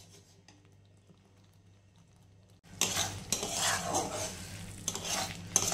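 Metal spatula stirring and scraping thick spinach masala around a steel kadhai, keeping it from sticking to the bottom. It starts suddenly about two and a half seconds in, after near silence, and goes on in repeated scraping strokes.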